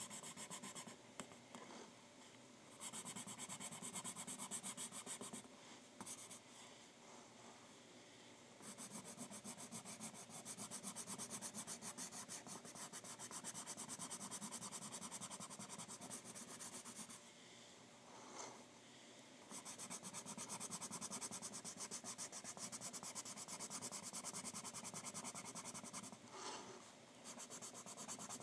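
Pencil sketching on paper: runs of quick, scratchy shading strokes, broken by several short pauses.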